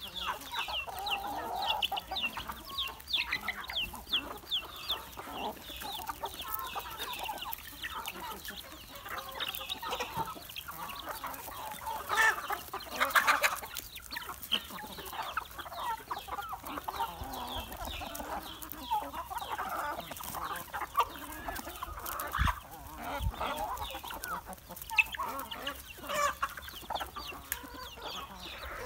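Chickens clucking, many short calls overlapping, with a louder cluster near the middle.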